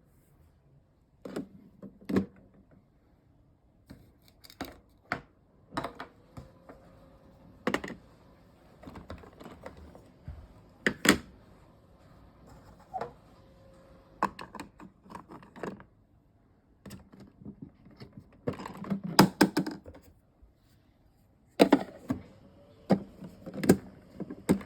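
Toy cooking-set pieces knocking and clicking as they are handled. The knocks come at irregular intervals, with a quick flurry a little past the middle and another near the end.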